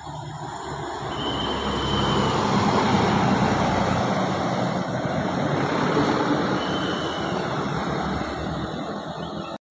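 A bus passing close by on the road: a steady rush of tyre and engine noise that builds over the first few seconds, stays loud, then cuts off suddenly near the end.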